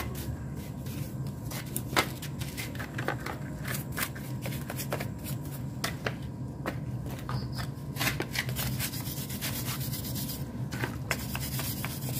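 A brush scrubbing the oily casing of a Suzuki RC100 motorcycle engine, wet with a detergent-and-petrol wash, in quick, irregular scratchy strokes.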